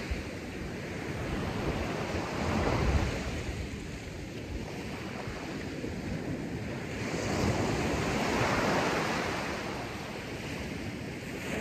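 Surf washing onto a shingle beach, swelling louder twice, with wind buffeting the microphone.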